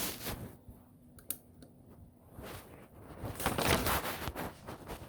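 Small clicks and rustling from handling wires and a connector, the loudest rustle a little past the middle, as a wire is fitted into a terminal of a motorcycle ignition switch.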